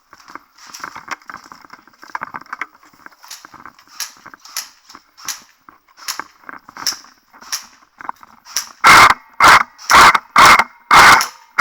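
Airsoft guns firing: scattered distant shots and pops, then about five very loud short bursts close by, roughly two a second, near the end.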